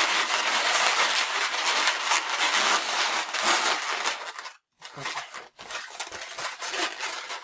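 Inflated latex twisting balloons (260 size) rubbing against each other under the hands as the coiled balloon is pressed and a part is pushed into a loop, a dense scraping sound. It cuts off suddenly about four and a half seconds in, then lighter, broken rubbing follows.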